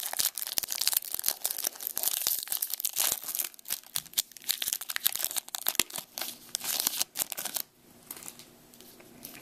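Foil wrapper of a Topps baseball card pack crinkling and tearing as it is pulled open by hand, a dense crackle that stops suddenly about two seconds before the end.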